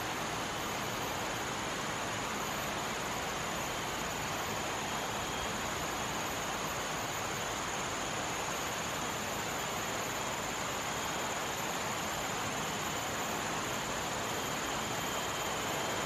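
Steady, even hiss with a faint high thin tone held above it; no calls from the bird.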